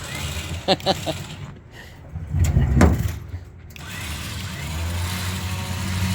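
Battery-powered electric motor, from the winch or the tilt trailer's hydraulics, starts up about four seconds in and runs steadily with a low hum while the lathe is moved. Before it comes a heavy clunk.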